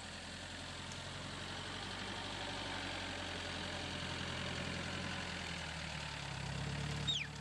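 Off-road 4x4's engine idling steadily, getting a little louder near the end, with a short high falling sound just before the end.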